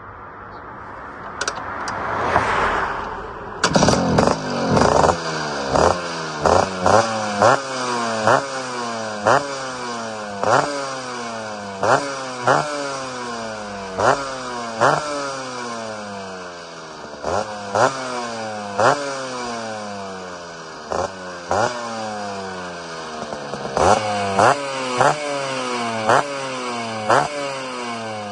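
A cold Vespa's two-stroke engine with a 144 cc Quattrini kit is started about three seconds in, then revved on the stand in repeated throttle blips, roughly one a second, each rev jumping up and sinking back toward idle.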